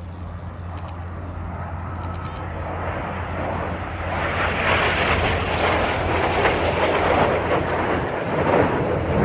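Red Arrows' BAE Hawk T1 jets flying past, their turbofan noise building over the first few seconds and staying loud through the second half.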